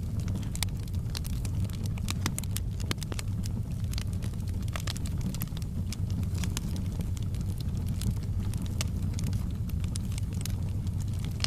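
Campfire crackling: many short, irregular pops and snaps over a steady low rumble.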